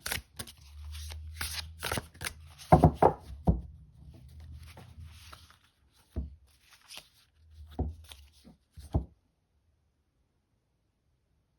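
Oracle cards being shuffled by hand: a quick run of soft card flicks and slaps, with a low rumble under parts of it and a few louder knocks about three seconds in. The shuffling stops about nine seconds in.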